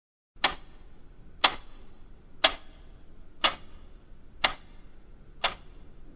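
Clock ticking, one sharp tick a second, six ticks in all.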